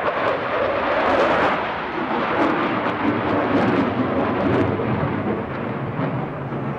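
Eurofighter Typhoon jet flying past, the noise of its twin EJ200 turbofans loud and continuous, easing off over the last second or two as the aircraft draws away.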